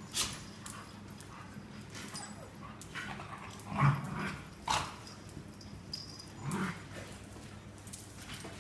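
Dogs playing, a grown dog with puppies: a few short dog vocalisations, the loudest about four seconds in, with another near the end.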